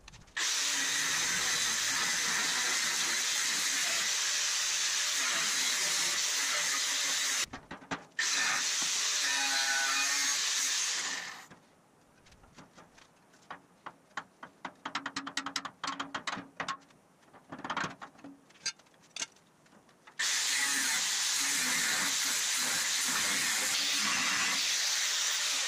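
Angle grinder cutting through the steel of a hot-rod frame's cross member, with a steady hiss. The grinding stops briefly about 7 seconds in. It stops again from about 11 to 20 seconds in, where scattered light metal clinks and taps are heard as the frame is handled, and then the grinding starts up again.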